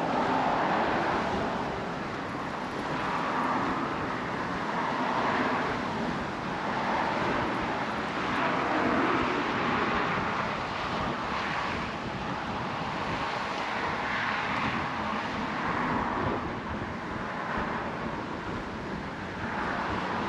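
Road traffic on the adjacent highway bridge: the steady rushing of car tyres, swelling and fading every few seconds as vehicles pass, mixed with some wind on the microphone.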